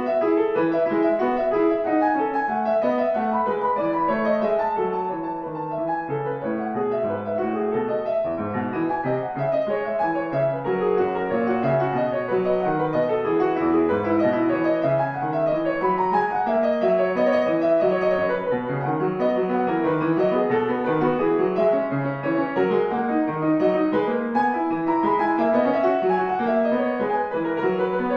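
A 1900 Steinway Model D concert grand piano, 2.74 m long and fitted with new German hammers, being played: a continuous passage of many notes in running figures that rise and fall, mostly through the middle and lower range.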